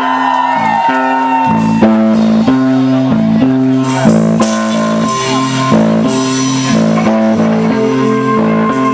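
Live rock band playing through a PA: electric guitar and bass guitar start a riff of notes that change about twice a second, about a second and a half in, with a few sharp hits over it.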